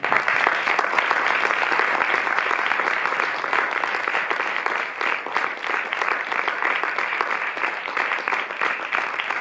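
Audience applauding, many people clapping at once. The applause starts suddenly and keeps up steadily.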